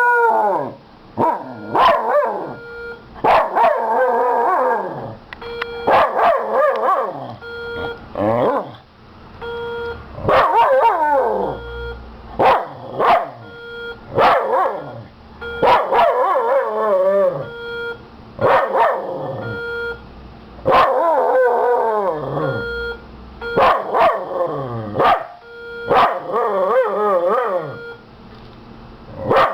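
Miniature schnauzer barking and howling at a fire alarm, in repeated bouts of a second or two that waver in pitch. Under them the alarm sounds a steady, evenly repeating beep.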